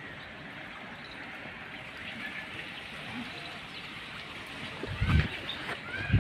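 Outdoor ambience of small birds chirping over a steady hiss, with two heavy low thumps near the end.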